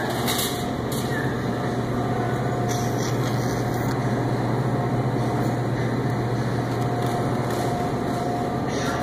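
Steady low hum and rumble of a supermarket interior, with a faint tone that comes and goes and a few light clicks.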